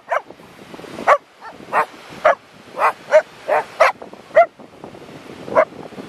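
A dog barking repeatedly in short, sharp barks, roughly two a second, with a pause before one last bark near the end.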